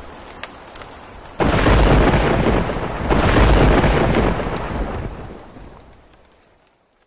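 Rain with two long rolls of thunder, the first breaking in suddenly about a second and a half in, the second about three seconds in and dying away toward the end.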